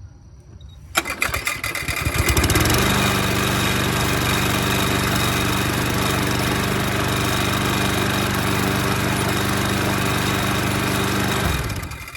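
A small motor-driven machine starts up with a rough burst, winds up over a second or two, runs steadily at one speed, and then shuts off and stops quickly near the end.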